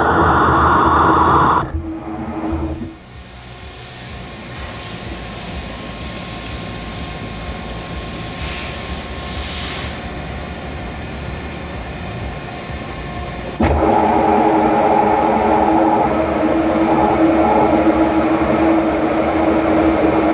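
Large Mazak manual lathe cutting 17-4 PH stainless steel, a loud steady machining noise with a held tone. About two seconds in it falls away to a quieter steady running sound, and about two-thirds of the way through the loud cutting noise comes back abruptly.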